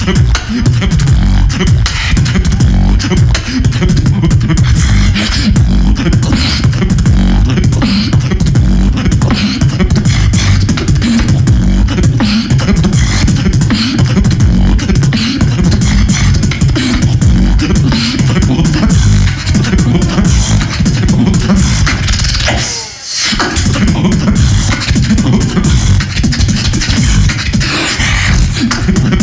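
Fast solo human beatboxing into a handheld microphone held cupped to the mouth: dense, rapid vocal percussion over deep bass sounds, with a brief pause about twenty-three seconds in.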